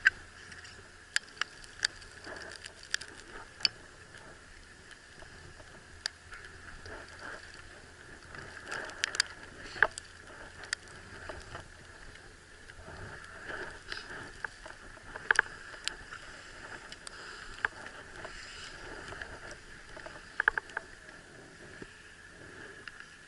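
Snowboard sliding over snow: a steady hiss with scattered sharp clicks and scrapes.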